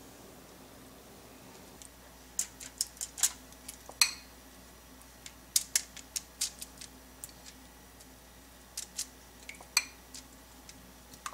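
Scattered sharp clicks and light taps, starting about two seconds in, from a silicone pastry brush against a bowl of beaten egg and a foil-lined baking tray as egg wash is brushed onto puff pastries. A couple of the taps have a short ring.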